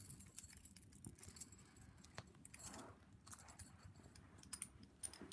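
Faint jangling of keys and scattered small metallic clicks as a Blue Spot 50 mm padlock is worked with its key.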